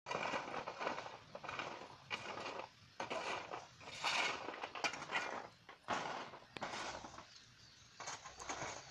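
Cashew seeds being stirred and scraped across a corrugated metal sheet with a long-handled tool while they roast over a wood fire, in irregular noisy scraping strokes roughly once or twice a second.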